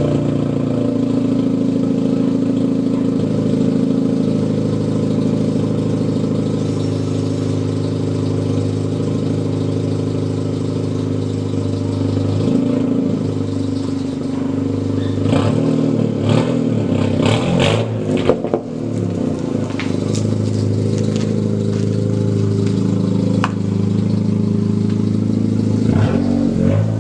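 2018 Honda Civic Si's 1.5-litre turbocharged four-cylinder running steadily on freshly changed oil. About halfway through, a run of sharp clicks and knocks sounds over it for a few seconds, and again near the end.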